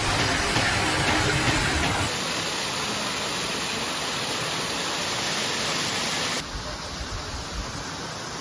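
Stream water rushing and spilling over a small concrete weir in a steady wash of noise. It drops suddenly in level about two seconds in and again about six seconds in.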